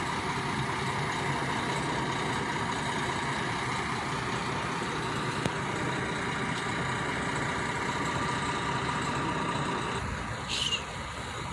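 Heavy diesel engine idling steadily, with a low rumble and a faint whine. It eases off a little about ten seconds in, and a short high chirp follows.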